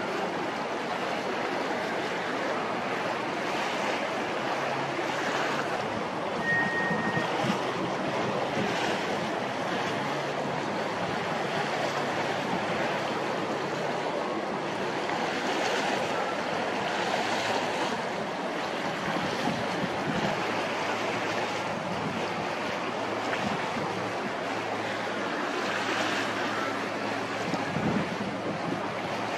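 Steady wind rushing over the microphone on harbour water, with a faint low hum of ship engines underneath.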